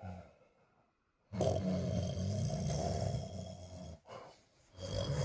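Snoring: one long rasping snore of nearly three seconds beginning about a second in, a short one after it, and another starting near the end.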